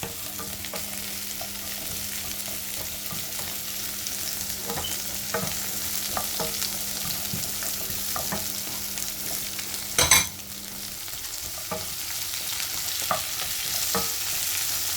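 Onion, celery and bell pepper sizzling as they sauté in a pan, stirred with scattered scrapes and taps of a utensil. One sharp knock about ten seconds in.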